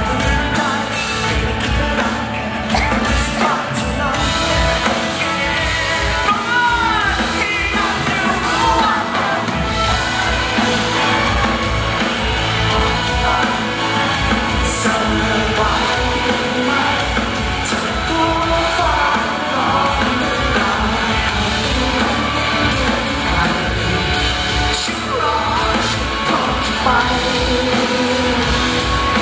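Live pop-rock band: a male singer singing into a microphone over electric guitar and keyboard, with a steady beat.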